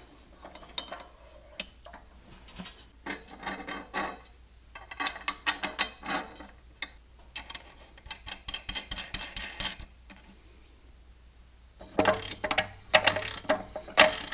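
Metal clinking and rapid clicking as a home-made threaded-rod bearing press is fitted over a tractor transmission shaft and its nut is run down the rod, drawing the front bearing onto the shaft. From about 12 s in come louder bursts of fast ratchet-like clicking, typical of a ratchet wrench on that nut.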